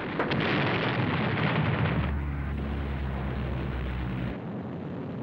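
Battle sound effects: a heavy, rumbling blast of explosions for about two seconds, then a steady low drone that cuts off suddenly about four seconds in.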